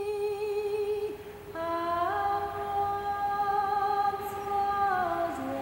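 A woman singing slow, long-held notes alone, with no instruments heard. Her voice slides up into a higher note about two seconds in, holds it for nearly three seconds, and glides down near the end.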